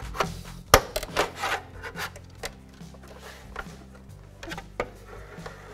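Pry bar scraping and clicking against the rim of a chrome hubcap as it is worked loose. There are several sharp clicks in the first two seconds or so and another near the end, over soft background music.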